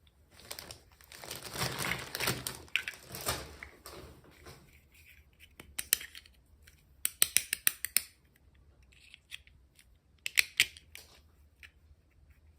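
Hands unboxing a miniature toy: rustling and crinkling of packaging for the first few seconds, then sharp clicks and taps, in a quick run of several strokes around the middle and another short cluster near the end.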